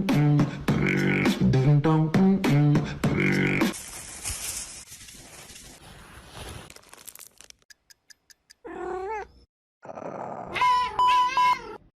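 Cat-like meows and wavering cries as edited sound effects, over a low pulsing rhythmic voice or beat at the start, with a few seconds of steady hiss in the middle.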